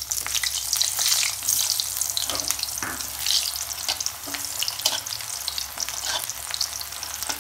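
Cut potato and pointed gourd (parwal) pieces frying in hot oil in a kadhai, a dense steady sizzle full of crackles, with a metal spatula stirring and knocking against the pan now and then.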